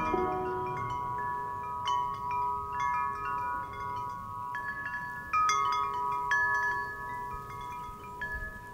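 Metal tubular wind chime ringing, its tubes struck at irregular moments, several clear tones overlapping and ringing on.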